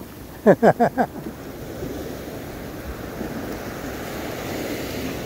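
Surf washing up the beach, swelling to a peak about four to five seconds in. About half a second in, a person's voice gives four quick, falling syllables, the loudest sound.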